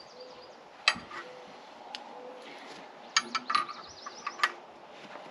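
Hand wrench clicking and clinking on steel hydraulic fittings as the auxiliary line couplers are tightened. A sharp click comes about a second in, then a quick run of clicks around three seconds in and one more near the end, with birds chirping faintly.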